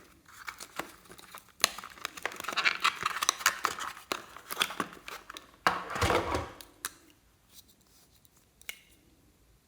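Slime being worked by hand close to the microphone: a dense run of crackling, clicking and sticky tearing for about five seconds, then it goes quiet apart from a few faint ticks.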